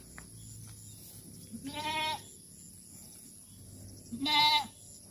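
Goat bleating twice, each call about half a second long and a couple of seconds apart.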